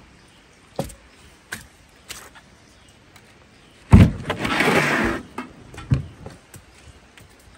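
A boat's companionway hatch being opened: a few light clicks and knocks, then about four seconds in a loud knock and a scraping slide lasting about a second, followed by another knock.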